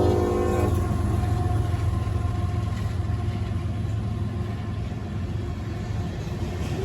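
Amtrak passenger train horn chord cutting off under a second in, then the train rolling past with a steady low rumble and wheel noise.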